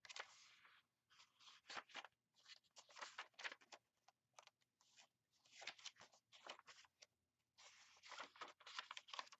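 Paper pages of a handmade junk journal rustling and crackling as they are handled and turned, in short irregular bursts with brief pauses between them.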